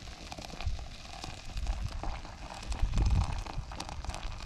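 Hot water poured in a thin stream from an aluminium kettle into a steel pot of coffee grounds, splashing and trickling steadily. Low rumbles of wind on the microphone come in from about a second and a half in.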